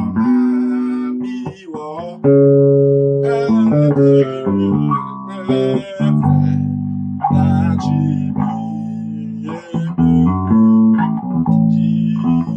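Bass guitar playing a melodic passage of plucked notes, some held and some changing quickly, with short breaks between phrases, demonstrating note substitutions.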